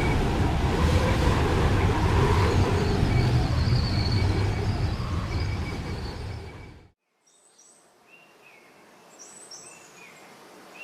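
A loud, steady rumbling noise fades and cuts off abruptly about seven seconds in. Faint, short bird chirps follow.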